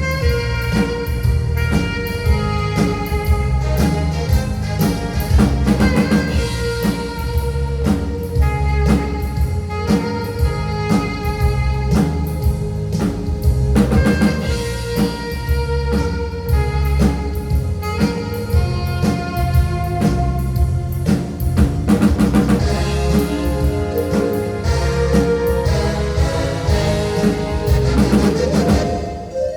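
Live band music: an alto saxophone plays a held melody over keyboard and a drum kit keeping a steady beat.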